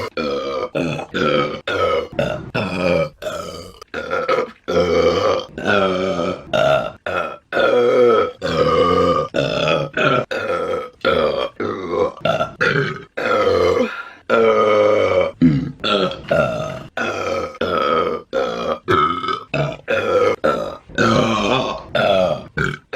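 A woman burping over and over: a long string of loud, drawn-out burps with pitch that wavers, each lasting about a second, with short breaks between them.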